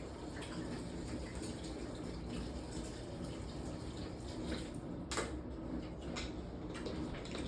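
Water running steadily from a kitchen tap into a sink, with a few light clicks or knocks about five, six and seven seconds in.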